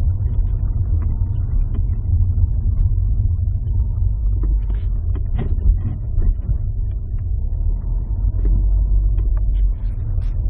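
Subaru Legacy BL5 giving a steady low rumble, with light ticks and rattles scattered over it, recorded as an abnormal noise from the car.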